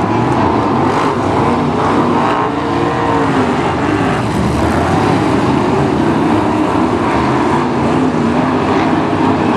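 Several BriSCA F1 stock cars' V8 engines running and revving together, their pitches rising and falling over one another as the pack laps the track.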